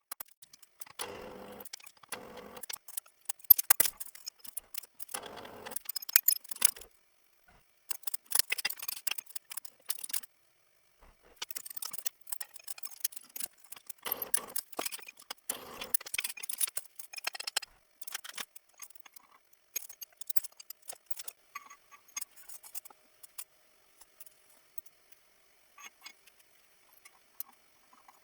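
Small metal parts and tools clinking and rattling as they are handled, with scattered sharp taps and a few brief scraping or rustling sounds, in irregular clusters.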